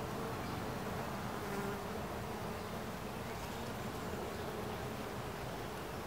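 Worker honeybees buzzing in an open hive: a steady, continuous colony hum.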